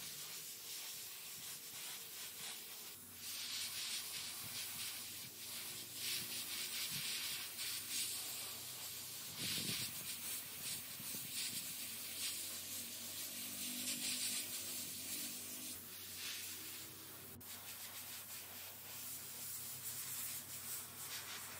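Airbrush spraying paint onto a plastic scale-model Humvee body: a hiss of air and paint that swells and eases every second or two.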